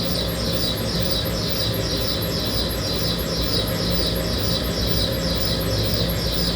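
High chirping, each chirp sliding down in pitch, repeating evenly about two or three times a second over a steady low hum.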